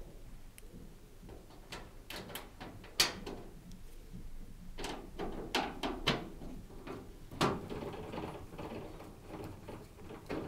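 Hand screwdriver driving screws to fix a dishwasher's sheet-metal side panel back on: light clicks and scraping of screws and panel, with a few sharper metallic knocks.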